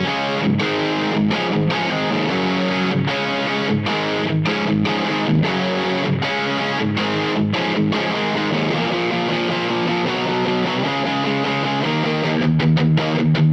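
Overdriven electric guitar played through an LPD Pedals Sixty8 amp-in-a-box pedal: a 1978 Greco LP-style guitar with Fishman Fluence Classic humbuckers. It plays chords and riffs with short breaks between them, and heavier, louder low chugs come in near the end.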